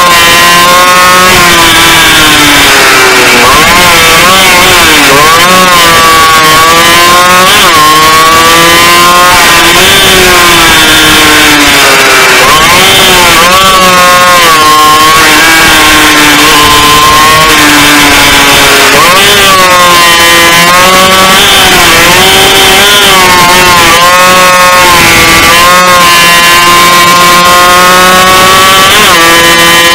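Racing motorcycle engine picked up by an onboard camera, running loud at high revs, its pitch climbing and falling again and again as it accelerates out of corners and slows into them.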